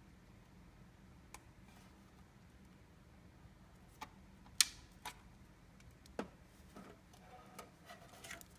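A few sharp, separate clicks and taps of small hard objects being handled, the loudest about halfway through, followed by light rustling and handling noise near the end.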